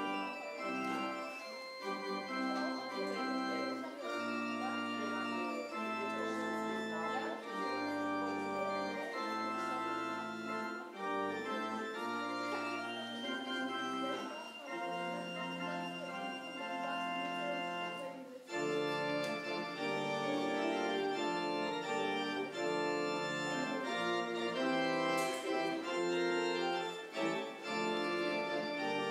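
Organ playing the closing music of a church service in slow, sustained chords, fuller and a little louder in the second half.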